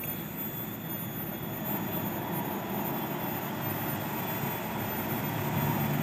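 Diesel engine of a tour coach approaching along the road, a steady drone growing slowly louder as it nears.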